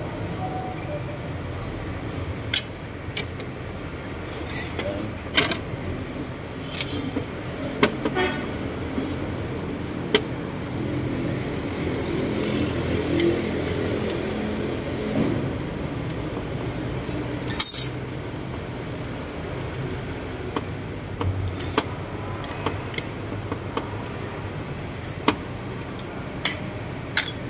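Scattered metallic clicks and clinks of a wrench and turbocharger parts being handled on a metal workbench, with one louder knock about two-thirds of the way through, over a steady low hum.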